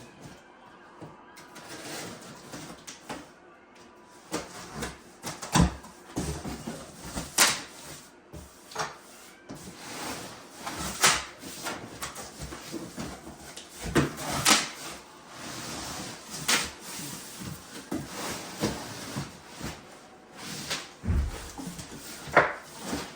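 Cardboard packaging being handled and pulled apart: irregular scraping, rustling and knocks as a subwoofer is worked out of its box-in-box packing.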